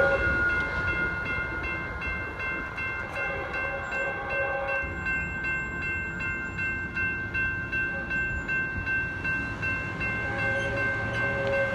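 Grade-crossing warning bells ringing in a steady, quick repeating rhythm. Under them, the rumble of a departing Metrolink commuter train fades over the first couple of seconds.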